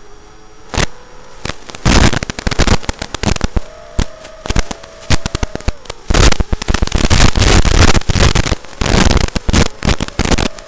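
Loud crackling static in irregular bursts from the analog FPV video receiver's audio channel as the signal breaks up.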